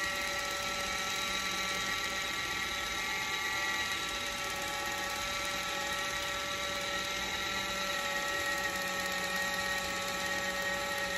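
Kitchen Mama battery-powered handheld electric can opener running as it drives itself around the rim of a can, cutting the lid: an even, steady motor whine with no change in pitch.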